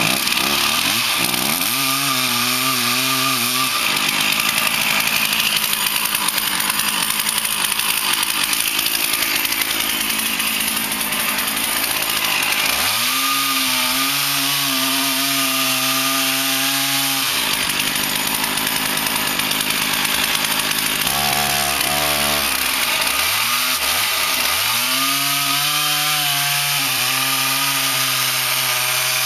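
Chainsaw cutting into the base of a poplar trunk. It runs hard and noisy through the cut for two long spells, and between them the engine drops back to a steadier running note.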